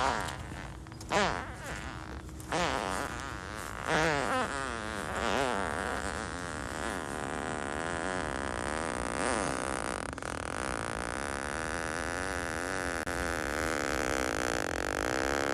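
A man farting: three short farts in the first couple of seconds, then one long, drawn-out fart with a wavering pitch that goes on for more than ten seconds.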